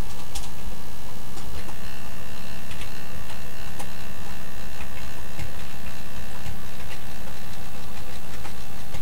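Model Keikyu 2100 electric train under computer control, its motor and power supply giving a steady electrical hum with scattered light clicks as the train creeps slowly along the track. A faint high whine sets in about a second and a half in.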